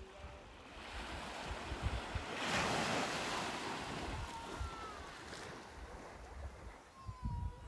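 North Sea surf breaking on the beach: one wave swells up about two and a half seconds in and then washes out. Wind buffets the microphone throughout.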